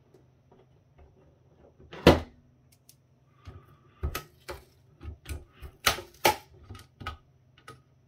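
Irregular sharp clicks and taps of a small hand tool working at the aluminium heat-spreader plates of a laptop power adapter being pried open. One loud click comes about two seconds in, then a string of clicks follows.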